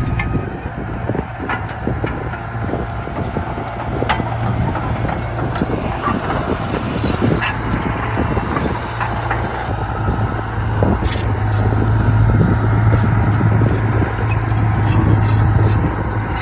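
Komatsu D31P bulldozer's diesel engine running steadily, with scattered clanks and rattles throughout. The engine grows louder in the second half.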